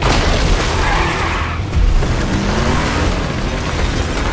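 Film sound effects: a sudden loud crash, then a big-wheeled vehicle's engine rushing past with flying debris, its pitch rising about two seconds in, under film music.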